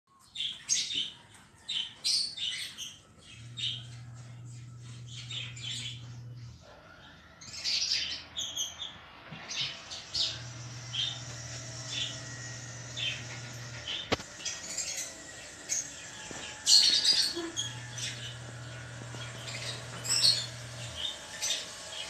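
Cockatiel chirping: a long run of short, high chirps, some coming in quick clusters.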